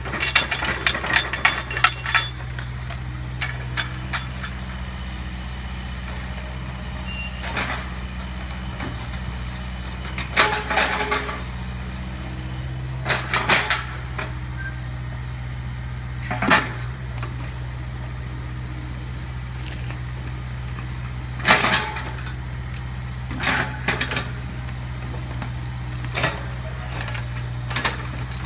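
Compact excavator's diesel engine running steadily, with scattered crashes and clatters of mobile-home demolition debris as the bucket digs into and drops rubble. The clatters come in a burst at the start, then singly every few seconds.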